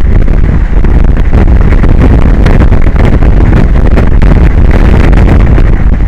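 Strong wind buffeting an outdoor microphone: a loud, heavy rumble with constant gusty crackle, near the top of the recording level.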